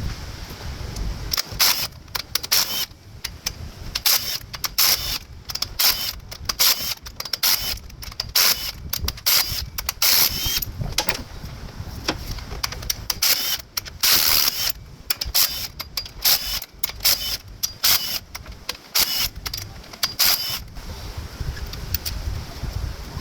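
Hand tools and metal engine parts clicking and clinking in many short, irregular sharp bursts, as bolts are worked loose on the cylinder head of a Nissan QG18DE engine.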